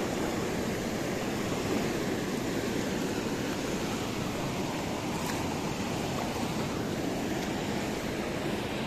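Steady rushing noise of a flowing river, even and unbroken.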